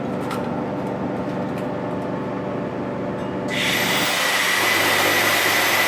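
Machinery running with a steady hum. About three and a half seconds in, a loud hiss with a steady high whine starts suddenly and keeps on.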